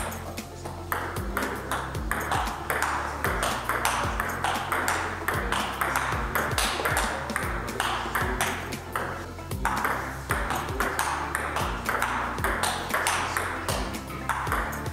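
Table tennis ball clicking back and forth in a rally, striking the table and the bats, one of them faced with Nittaku Hurricane Pro III Turbo Orange rubber. Background music with a steady bass beat plays underneath.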